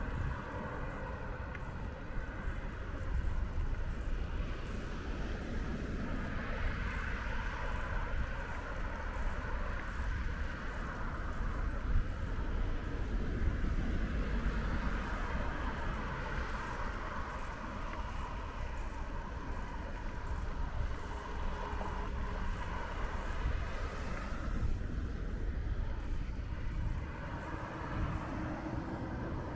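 Street traffic: vehicles going by one after another over a steady low rumble, several passes swelling and fading.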